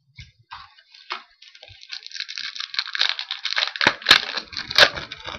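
A trading-card pack wrapper crinkling as it is torn open. It is faint at first, then becomes a dense crinkle with a few sharp crackles about four seconds in.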